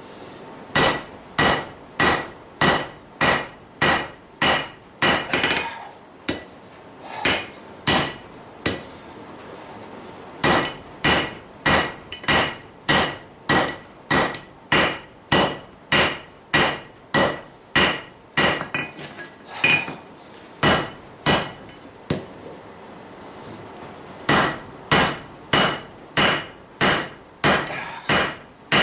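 Hand hammer forging hot steel on a cast-iron Vulcan anvil: steady blows about two a second, each with a short metallic ring. The hammering stops briefly three times.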